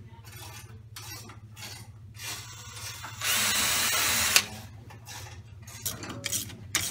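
Ryobi cordless drill/driver running under load for about a second, about three seconds in, stopping with a sharp click. Small handling clicks and knocks come before and after it.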